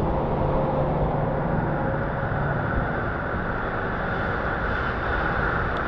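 Self-serve car wash pressure wand spraying water onto a car: a steady rush of spray.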